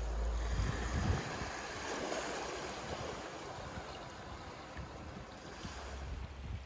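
Small waves washing onto sand and washed-up seaweed at the water's edge. The wash swells about two seconds in and then fades back. Wind rumbles on the microphone in the first second.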